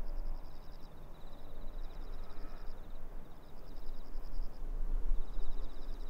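Insects calling in repeated short trains of rapid high chirps, two callers at slightly different pitches taking turns, over a steady low rumble.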